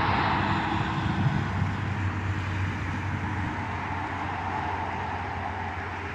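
Highway traffic going past, loudest near the start as a truck passes close and then slowly fading.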